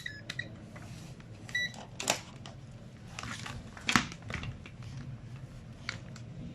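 Digital multimeter in continuity mode giving short high beeps as the probes make contact through the charger cable, a few times in the first two seconds, with sharper clicks of the probes and handling about two and four seconds in. The beeps signal an unbroken circuit in the cable.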